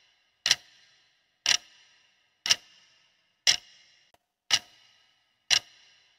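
Clock-tick sound effect marking a quiz countdown timer: six sharp ticks, one a second, each with a short ringing tail.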